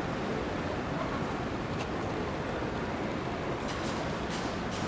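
City street ambience: a steady rumble of traffic with a few faint clicks and a sharper knock at the very end.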